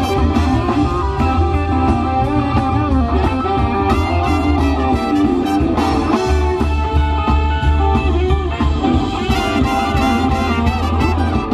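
Live swing band playing an instrumental passage: electric guitar lead over upright bass, drums and brass.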